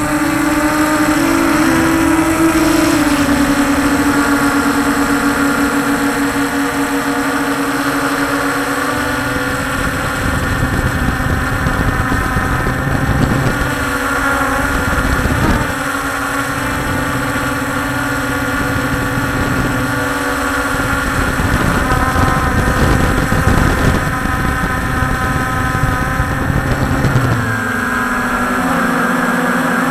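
Multirotor drone's electric motors and propellers buzzing steadily, heard from the drone itself, with the pitch stepping down about two seconds in and shifting again near the end as the throttle changes. A low rumble runs underneath.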